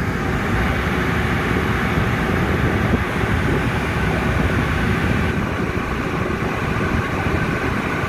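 Rooftop Carrier package air-conditioning unit running: steady fan and moving-air noise.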